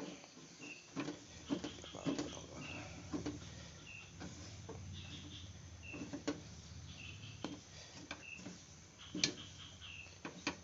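A spatula stirring and scraping thick, sticky durian dodol in a Teflon frying pan, with irregular knocks and clacks against the pan. A faint high chirp repeats about twice a second in the background.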